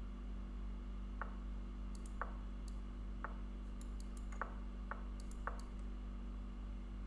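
Online chess board's move sounds: about six sharp clicks, roughly a second apart, as opening moves are played in quick succession, with fainter, sharper ticks between them. A steady low hum runs underneath.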